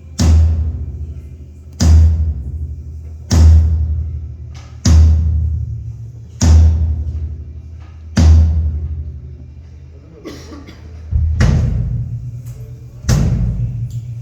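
A single drum struck on its own again and again, one deep booming hit about every second and a half, each ringing down before the next, as a drum is checked at a sound check. After a slightly longer pause the last two hits sound a little higher.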